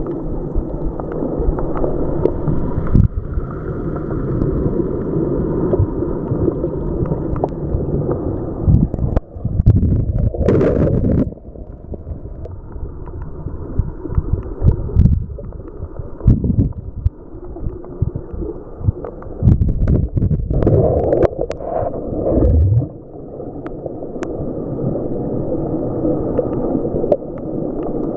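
Underwater wave surge heard through a camera housing: a muffled, churning rush and rumble that swells and eases, loudest about ten and again about twenty seconds in, with scattered sharp clicks and knocks.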